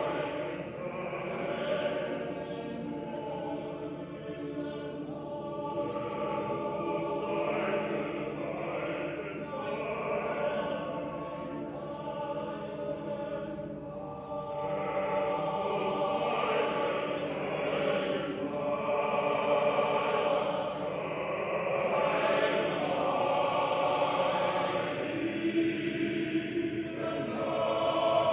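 Small male chorus of about ten voices singing sustained chords, growing louder in the second half.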